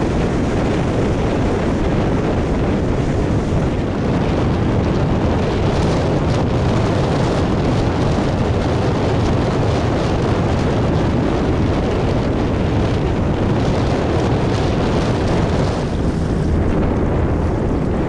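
Wind buffeting the camera microphone: a loud, steady noise, heaviest at the low end, with no let-up.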